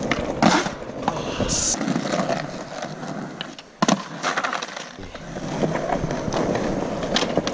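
Skateboard wheels rolling over rough concrete, with a few sharp clacks of the board striking the ground. The loudest clack comes a little before four seconds in.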